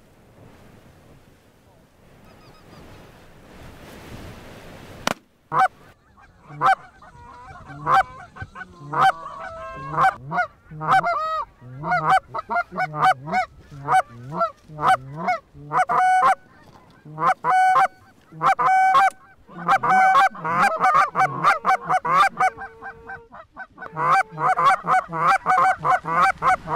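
Canada goose honks, short and repeated several times a second, starting about five seconds in and growing denser and overlapping near the end. Before that there is only a faint wind hiss.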